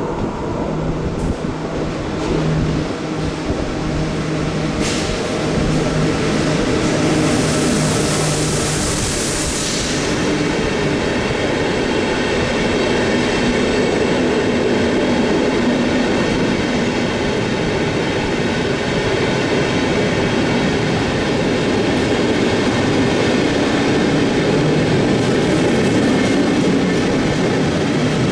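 Strukton 1824 electric locomotive and its train of passenger coaches passing through the station. The sound grows as the locomotive comes in and is loudest as it goes by, about seven to ten seconds in, followed by the steady rumble and clatter of the coaches rolling past.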